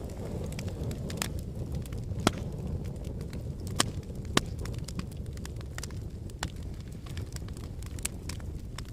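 Fire in a fireplace crackling: irregular sharp pops and snaps over a steady low rumble, with a few louder pops around the middle.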